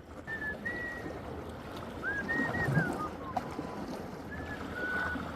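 Sea water washing and lapping steadily, with a few short, faint, high-pitched chirps scattered through it.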